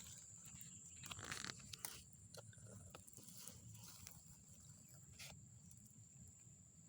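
Near silence: a few faint rustles and clicks, mostly in the first two seconds and once about five seconds in, over a steady thin high-pitched whine.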